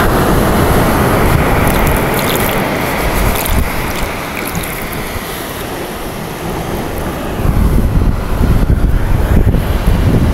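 Wind blowing across the microphone over the steady wash of surf on the beach, with the wind rumble growing louder about three-quarters of the way through.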